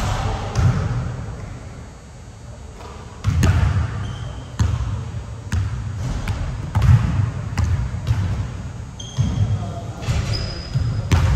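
A basketball bouncing on a hard court during play, irregular thuds half a second to a second and a half apart, with a few short high squeaks of sneakers on the floor.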